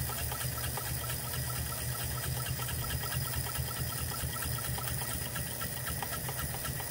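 DeLuxe President sewing machine, a Japanese Class 15 clone, running steadily while stitching through two layers of cowhide leather: a low motor hum with a fast, even ticking of the needle stitches.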